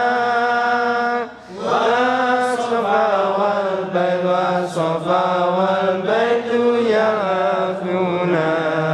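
Male chanting of Arabic devotional verses (sholawat), sung in long held, wavering notes, with a short breath break about a second and a half in.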